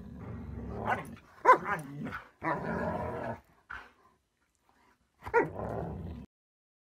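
A German shepherd and a husky play-fighting: long rumbling growls in three stretches, broken by sharp barks about a second and a half in and again near the end, then the sound cuts off.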